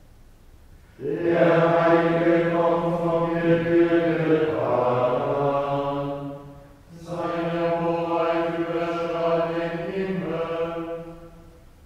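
Gregorian chant of the Good Friday Tenebrae office: voices reciting a psalm in unison on one held note. Two phrases begin about a second in and about seven seconds in, with a short breath between, and each phrase ends in a brief pitch inflection.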